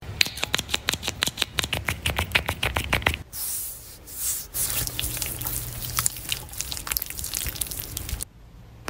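Wet tapping and squishing of makeup being applied: a foundation-loaded puff patted against the face, then a small brush dabbing concealer. Quick even taps for about three seconds, a brief hiss, then looser, irregular taps that stop just before the end.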